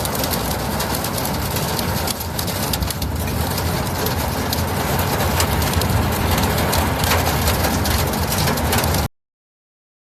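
Heavy rain falling, a steady dense hiss. It cuts off abruptly to silence about nine seconds in.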